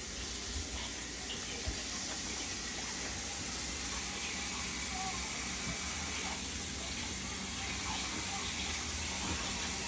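Kitchen tap running steadily into a sink, a constant hiss of water.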